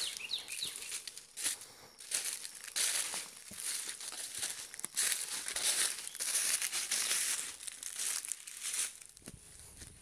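Footsteps crunching through dry leaf litter on a forest trail, an irregular run of crunches.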